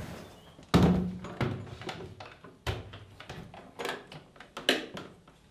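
A handful of irregular knocks and clunks, about five in all. The first and loudest comes about a second in and has a short ringing tail.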